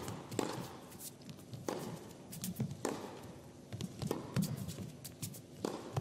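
Tennis rally on an indoor hard court: several sharp racket strikes on the ball a second or more apart, with ball bounces and players' footsteps between them, each strike ringing briefly in the hall.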